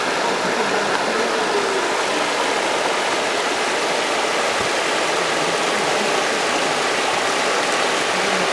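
Creek water spilling over a low pile of rocks: a steady rush of flowing water.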